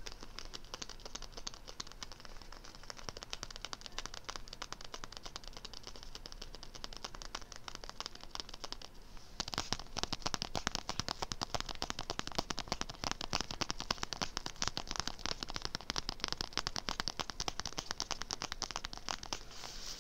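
Fingernails rapidly tapping on a zippered makeup bag, a fast crisp clicking that grows louder and denser about halfway through.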